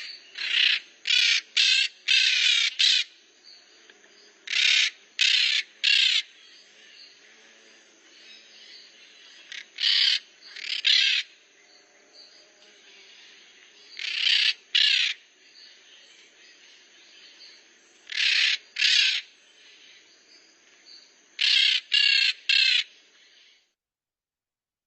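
Maritacas (Pionus parrots) calling: loud, harsh screeching calls in clusters of two to four, repeated every few seconds.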